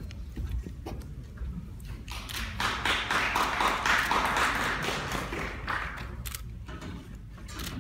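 Audience applause, swelling about two seconds in and dying away after about six, with scattered sharp clicks throughout.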